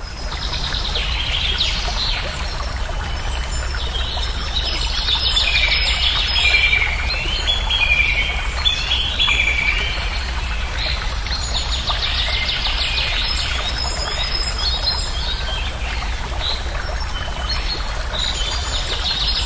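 Songbirds chirping and singing in quick, gliding phrases over a steady rush of running water.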